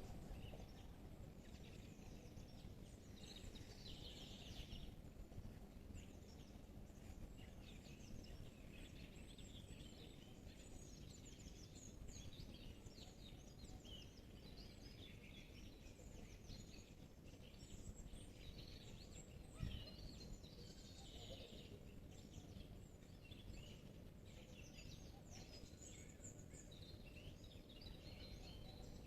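Faint chorus of many small songbirds singing and chirping in a forest on a spring morning, over a steady low rumble. A single brief thump about two-thirds of the way through.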